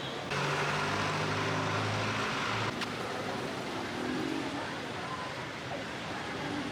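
Street traffic: a motor vehicle's engine running with road noise for a few seconds, then cutting off suddenly, leaving quieter street noise with faint voices.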